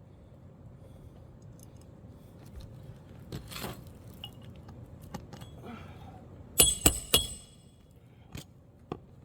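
Hammer driving a roofing nail into an asphalt shingle: three sharp, ringing strikes in quick succession about two-thirds of the way in. Before them come faint scattered ticks and scrapes.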